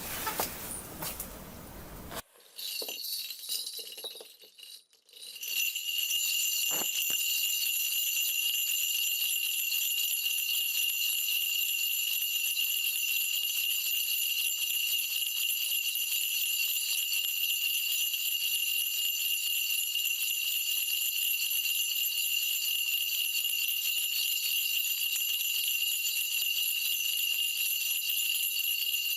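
A shaman's cluster of brass ritual bells (mugu bangul) being shaken continuously in a dense, steady jingle. It starts unevenly a couple of seconds in and settles into an even shaking after about five seconds. This is the bell-shaking a Korean mudang does to call the spirits before a divination reading.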